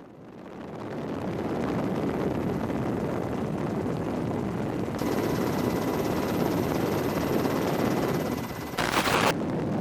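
Steady aircraft engine noise that fades in over the first second or two and holds, with a short louder burst just before the end.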